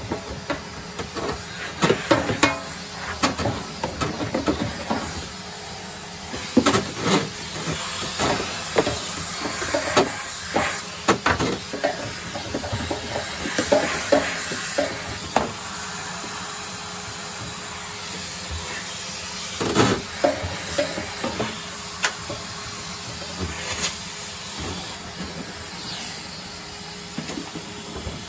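Vacuum cleaner running steadily, sucking lint and debris out of the inside of an opened tumble dryer, with frequent clatters and knocks as the nozzle and debris hit the cabinet. Near the end the motor sound falls in pitch and level as it winds down.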